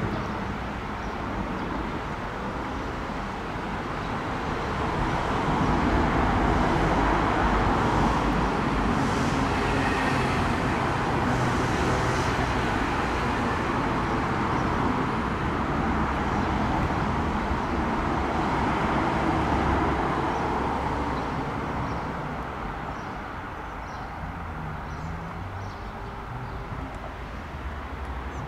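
Vehicle passing by: a steady rolling rumble that swells about five seconds in, holds, and fades after about twenty seconds.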